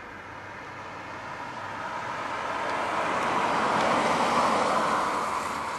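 A vehicle passing by, its noise swelling to a peak about four seconds in and then fading.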